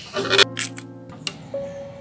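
Background music with held notes. Near the start there is a short scratchy rustle and a click from an oil lantern being handled.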